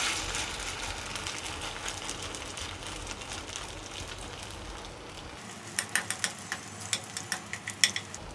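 Poha-and-semolina vegetable patties sizzling steadily in a little oil in a nonstick pan. Near the end a quick run of sharp clicks and taps joins the sizzle.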